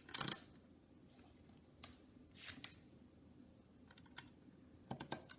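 Small LEGO plastic pieces clicking as they are handled and pressed into place, with scattered sharp clicks and a quick run of clicks near the end.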